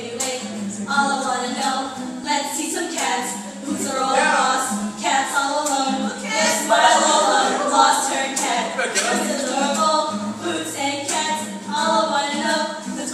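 Several young women singing together in harmony over a steady percussive beat.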